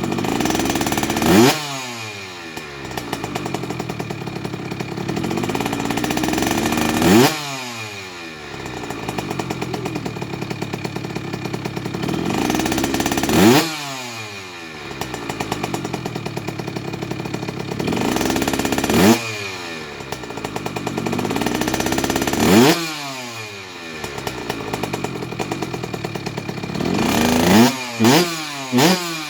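Kawasaki KX65's single-cylinder two-stroke engine revved repeatedly during a break-in heat cycle on a fresh motor. Five times, about every five or six seconds, the revs climb to a peak and fall back to idle. Near the end come three quick throttle blips.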